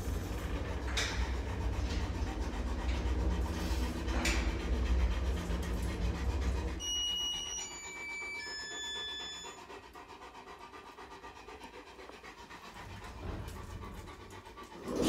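An Akita panting with its tongue out, over a steady low rumble that drops away about seven seconds in.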